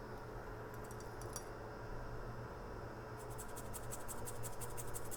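Light, rapid scratching ticks, about ten a second from about three seconds in, with a few fainter ticks about a second in, over a steady low hum: small hand tools working on a phone circuit board at a microsoldering bench.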